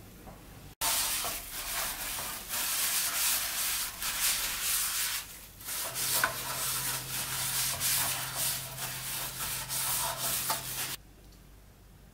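Repeated rubbing strokes of cleaning across a surface, a dense rasping scrub that stops abruptly near the end; a low steady hum runs underneath in the second half.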